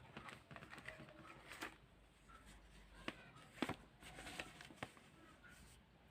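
Quiet handling sounds: faint rustling and small clicks, with two sharper taps about three seconds and three and a half seconds in.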